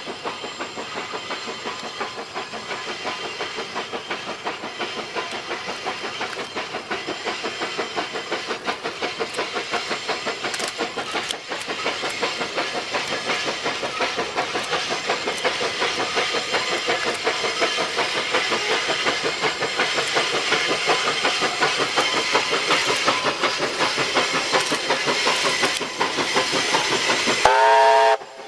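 A China Railways JS-class 2-8-2 steam locomotive working a freight train, its exhaust beating in a quick, even rhythm that grows steadily louder as it approaches. Near the end there is a short pitched tone, then the sound briefly drops out.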